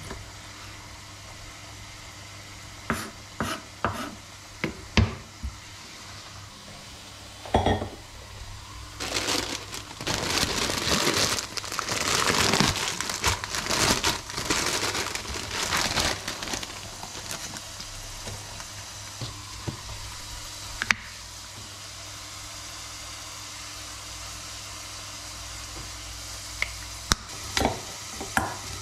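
A knife slicing cooked chicken on a wooden cutting board, with a few sharp knocks of the blade on the board. Then a plastic bag of lettuce crinkles and rustles for several seconds. Near the end a spoon clinks against a stainless steel bowl as lettuce is tossed, all over a steady low background hum.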